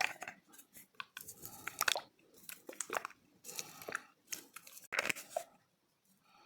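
A large piece of chalk being crunched: a run of irregular crisp crunches and crackles, with a short lull near the end.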